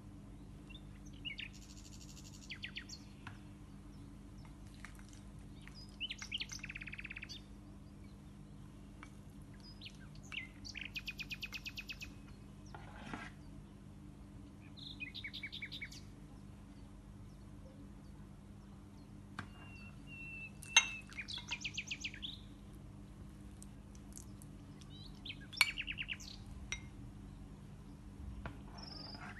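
A songbird sings short, high, trilled phrases every few seconds over a steady low hum. Twice in the second half, a sharp clink of a spoon against a glass dessert cup.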